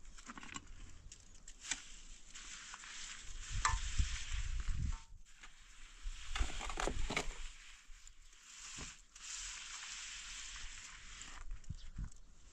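Scraping and gritty crunching of wet mortar and gravel as concrete blocks are laid with a trowel and shovel, with scattered clicks and heavier low thuds about four and seven seconds in.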